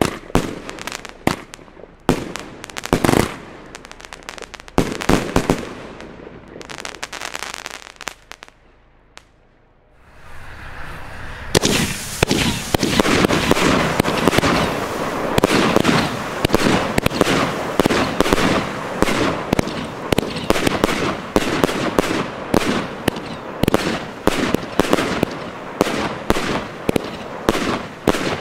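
Funke aerial fireworks going off: scattered sharp bangs and crackles, a brief lull about eight seconds in, then a rising hiss and, from about twelve seconds, a dense, continuous barrage of bangs and crackling.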